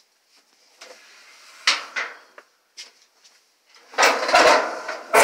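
Knocks and clatter of hands working on a washing machine, then a loud scraping rattle about four seconds in that ends in a sharp metallic clang.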